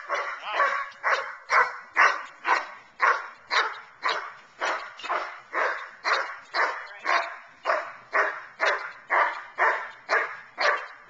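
Large black shepherd-type dog barking in a steady, rapid rhythm, about two loud barks a second, without a break.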